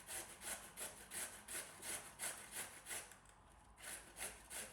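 A carrot being shredded by hand on a kitchen grater, in rhythmic back-and-forth rasping strokes of about three a second, with a brief pause a little after three seconds in.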